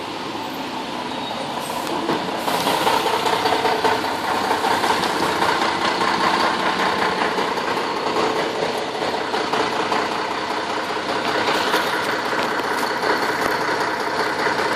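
Heavy rain pouring down: a steady, dense rushing that swells a little about two seconds in.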